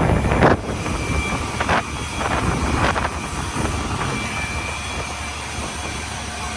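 City street noise: a steady low rumble of traffic and engines, with a few short knocks in the first three seconds.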